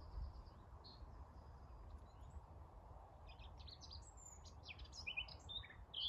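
A small songbird singing a quick run of varied high notes that starts about three and a half seconds in and grows louder, with a few faint high calls near the start, over a low steady rumble.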